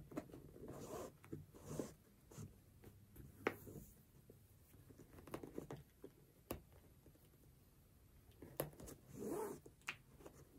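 Faint rustling and sliding of a flat cloth shoelace being threaded and drawn through a sneaker's metal eyelets by hand, with scattered soft scrapes and a few light clicks.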